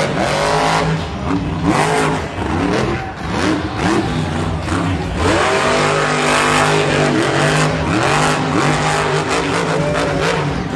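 Grave Digger monster truck's supercharged big-block engine revving hard in repeated surges, its pitch sweeping up and falling back again and again.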